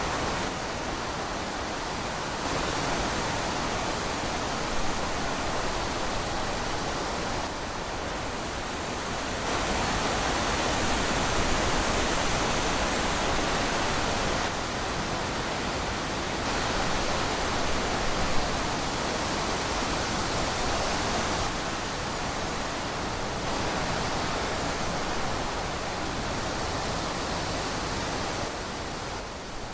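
Wind rushing steadily through trees, a continuous noise that swells and eases slightly.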